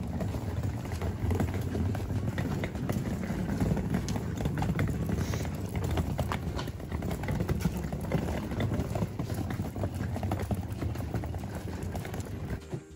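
Footsteps of several people walking on a paved path, with the small wheels of a rolling suitcase rattling and rumbling over the paving: a dense, uneven patter of clicks over a low rumble.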